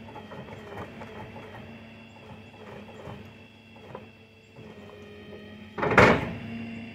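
Motor-driven unloading gear of a shed-hauling tilt trailer running with a steady mechanical whir and faint ticks as a wooden shed is eased off onto the ground. About six seconds in comes one loud, short, noisy burst, like a scrape or creak of the load shifting.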